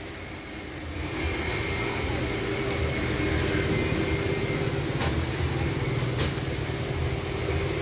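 Steady vehicle noise: an engine running with a low rumble, rising slightly about a second in and then holding even.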